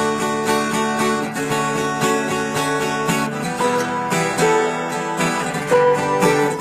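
Recorded acoustic guitar strumming chords in a steady rhythm, the instrumental intro of a rock song, with the chord changing about three seconds in.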